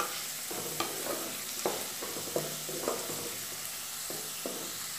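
Wooden spatula stirring diced potatoes and papaya in a nonstick pan, the pieces frying in oil with a soft, steady sizzle. Short scraping strokes of the spatula come about once a second.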